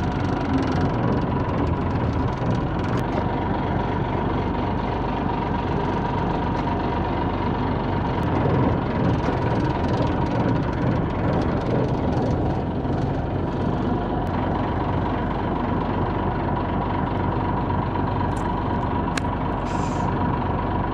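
A boat's engine idling steadily, a constant low hum with a faint steady whine over it.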